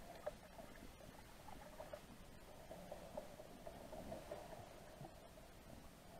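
Faint underwater ambience heard through a camera's waterproof housing: a low hiss with a steady flicker of tiny irregular squeaks and ticks.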